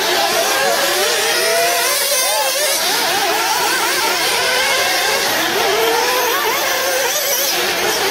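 Several 1/8-scale off-road RC buggies racing, their small nitro engines making a high-pitched whine. Several engines overlap, each rising and falling in pitch as the cars accelerate and brake through the corners.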